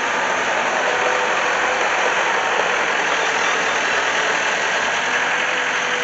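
Bobcat 873 skid steer's diesel engine running steadily.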